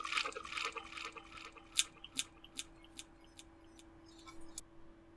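A person slurping water in quick, noisy sips, breaking off about a second and a half in into a run of separate sharp clicks, about two or three a second, that stop near the end.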